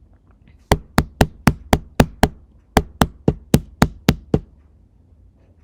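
Knocking: two quick runs of seven sharp knocks, about four a second, with a short pause between them.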